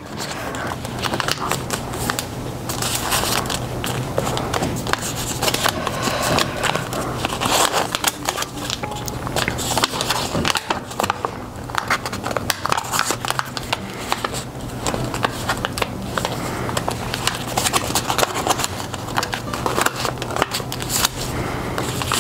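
Square sheet of origami paper rustling and crinkling as it is folded and creased by hand, with many small crackles throughout. A steady low hum runs underneath.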